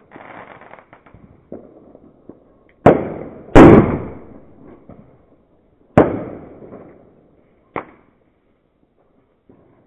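Fireworks going off: a string of sharp bangs, the loudest about three and a half seconds in and two others strong, each trailing off in an echo, with smaller pops between them and a short hiss at the start.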